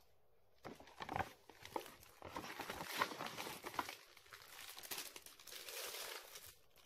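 Translucent plastic carrier bag rustling and crinkling as it is handled, a run of quick small crackles that begins about two-thirds of a second in.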